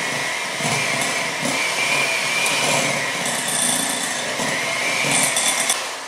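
Electric hand mixer running with its beaters in a bowl, creaming cream cheese; the motor's whine rises and falls a little as it works and stops near the end.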